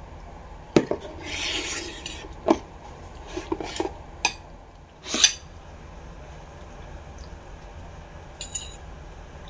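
Metal fork clinking and scraping against a dinner plate while eating: a handful of sharp clinks spread over about five seconds, the loudest about five seconds in, with a second of rasping scrape near the start and one small double clink near the end.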